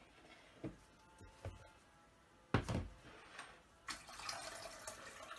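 A plastic water pitcher knocking a few times as it is handled, the loudest knock about two and a half seconds in, then water pouring steadily from about four seconds in, warm water for the rice-flour batter.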